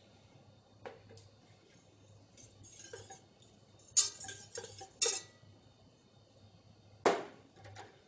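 Stainless steel saucepan and metal utensils clinking and knocking: a few sharp metallic knocks, the loudest about four seconds in and again about seven seconds in.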